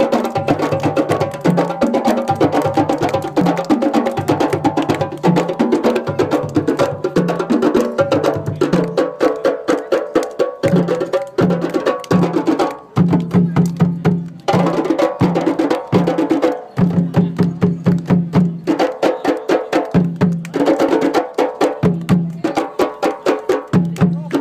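Djembes played together by a drum circle in a fast, steady rhythm: deep bass notes under a dense run of quick, sharp hand strokes. The drumming thins briefly a few times around the middle, then carries on.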